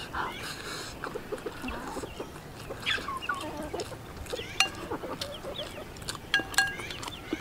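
Chickens clucking now and then in short calls, a few of them falling in pitch, over small sharp clicks of chopsticks against a porcelain bowl.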